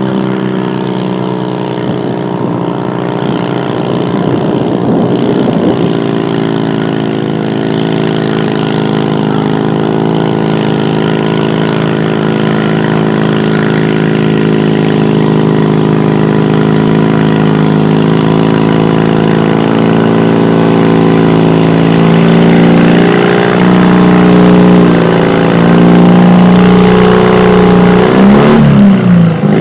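Garden tractor engine running hard under load as it pulls a weight-transfer sled down the track, growing louder as it approaches. In the last several seconds its pitch steps down and wavers, then falls away as the pull ends.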